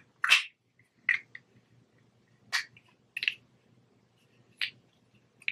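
Hard plastic GoPro mount parts clicking as they are handled: about six sharp clicks at irregular intervals, the loudest in the first half-second.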